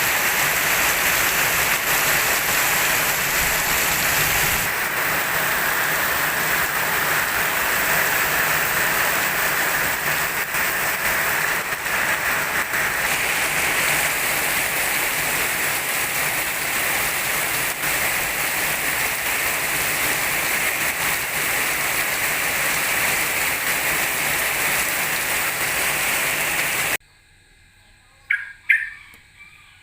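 Steady heavy rain falling, a dense unbroken hiss, that cuts off suddenly near the end, after which a bird gives a few short squawks.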